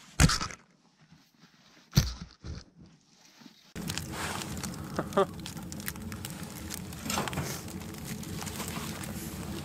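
Balsam fir boughs being laid on snow, with two sharp rustling snaps of branches in the first two seconds. About four seconds in it gives way to a Great West Metalworks wood stove burning with its door open: a steady roar of fire as the draw pulls air in, with crackles of burning wood.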